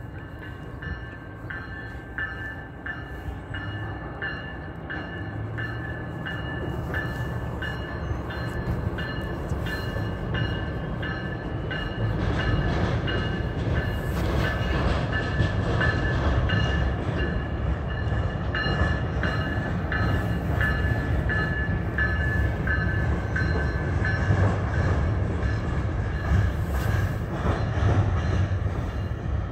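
Amtrak passenger train rolling across a steel truss swing bridge: a steady rumble with a regular clicking clatter of wheels on the rails, about two clicks a second. It grows louder about twelve seconds in as the train comes nearer.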